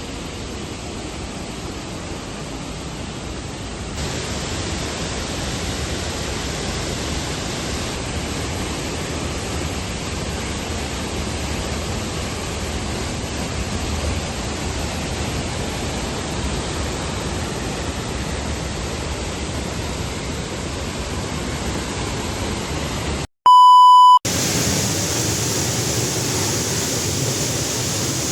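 Steady rushing of a waterfall that changes in level and tone at edits, broken about 23 seconds in by a loud, single, steady beep lasting about a second.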